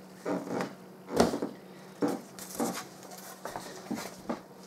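Foam fuselage of a Skywalker 1900 FPV model plane handled and turned over on a wooden table: about half a dozen short scuffs and knocks of foam against wood.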